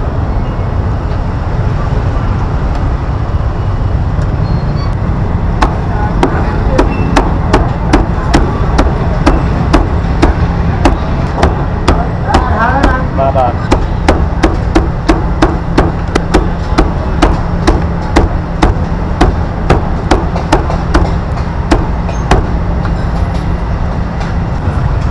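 A cleaver chopping food on a wooden block with sharp, even strokes, about two a second, starting a few seconds in and stopping near the end, over street-market bustle.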